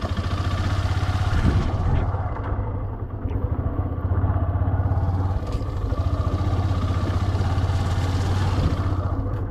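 Yamaha FZ motorcycle engine running steadily as the bike rides along, with a hiss of wind and tyre noise that thins for a couple of seconds about a third of the way in.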